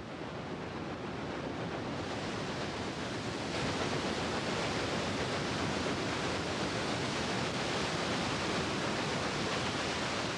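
Steady rushing of water churned up by a steamboat, growing louder about three and a half seconds in.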